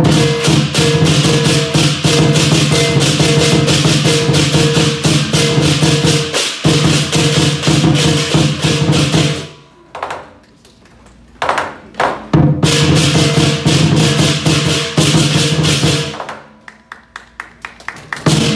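Southern Chinese lion dance percussion: a large lion drum with clashing hand cymbals, played in a fast, dense beat. It breaks off for a few seconds around the middle with just a couple of single strokes, starts again, then thins out to separate strokes near the end.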